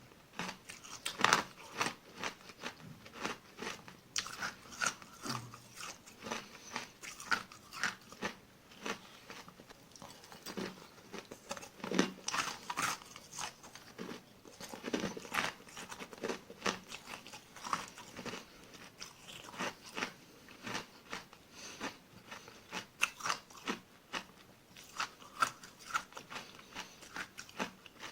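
Small granular ice being bitten and crunched close to the microphone: a long run of sharp, irregular crunches with chewing in between.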